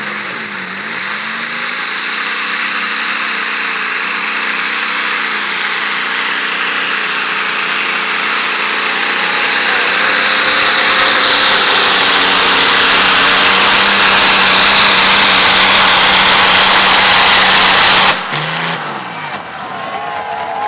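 Modified pulling tractor's supercharged engine at full throttle under load, revving up at the launch and getting louder as the pull goes on. It cuts off abruptly near the end as the driver lets off at the end of the pull.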